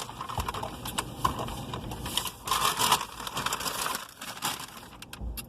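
Irregular crinkling and rustling handling noises, with a few light clicks near the end.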